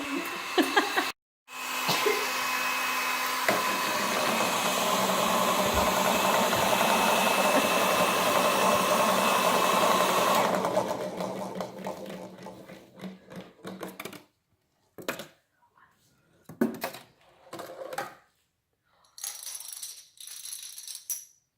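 A hair dryer runs steadily, blowing air. About ten seconds in it is switched off and winds down over a few seconds. Then come scattered light taps and knocks as the ping pong ball drops and rolls down the ramps of the machine.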